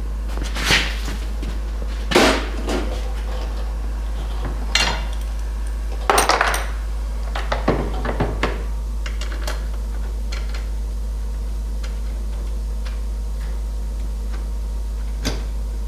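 Metal cab brackets and hardware clinking and clanking as they are handled and fitted, a few separate clatters over the first half, then only light ticks, over a steady low hum.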